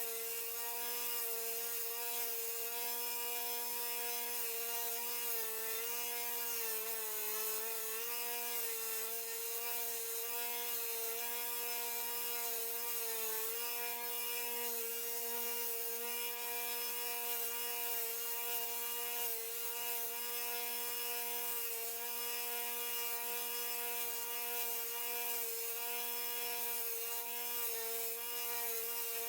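Electric power sanding tool running with a steady motor whine, grinding the wooden knife handle down flush with the tang. Its pitch sags briefly twice, about six to eight seconds in and again near thirteen seconds, as the work is pressed against it.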